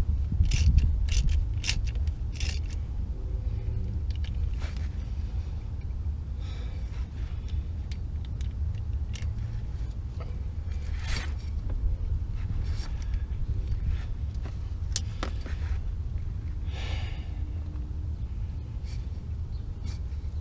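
Scattered metallic clinks and scrapes of hand tools and bolts being worked while fitting a Jeep Wrangler's rear driveshaft, over a steady low rumble.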